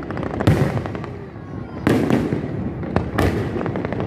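Aerial fireworks shells bursting: three loud bangs about a second and a half apart, with crackling between them.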